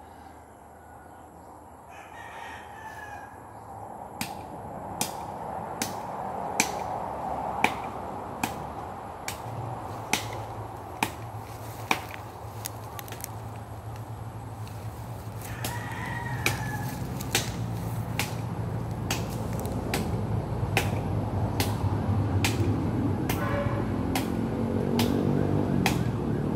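Blade strokes chopping into a jackfruit tree, sharp single chops about one a second. A rooster crows twice, and a low engine drone grows louder in the background near the end.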